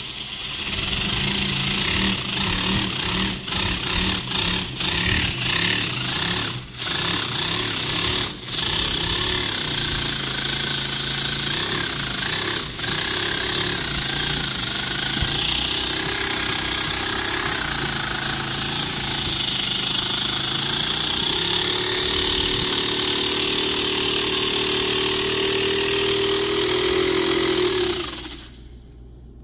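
Miniature paper V-4 air engine running on balloon air: a fast, uneven chatter over a loud hiss of air leaking through its valves. It stutters several times in the first eight seconds, its pitch rises about 21 seconds in and holds, then it falls and stops about a second before the end as the air runs out.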